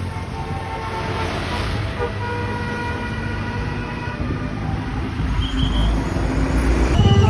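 Tour bus's telolet musical air horn sounding held tones over a running diesel engine. The engine rumble grows louder near the end.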